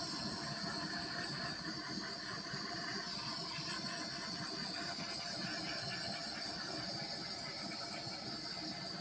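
Small handheld torch flame hissing steadily as it is played over wet poured acrylic paint to bring up cells.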